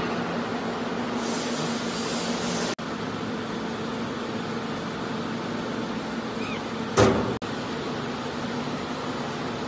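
Steady hum of card slitting and collating machinery running, with a faint steady tone. A hiss comes in about a second in and lasts about a second and a half, and a short loud burst of noise comes about seven seconds in.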